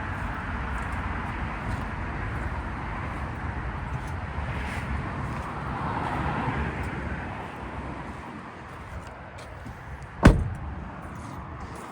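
Steady background rumble, then a single loud slam about ten seconds in: a door of a VW California Ocean T6.1 camper van being shut.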